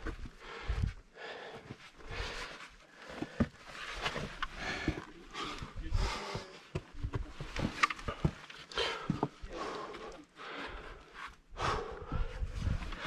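Heavy, uneven breathing of a climber scrambling over granite blocks, mixed with scuffs, clicks and knocks of boots and gloved hands on the rock.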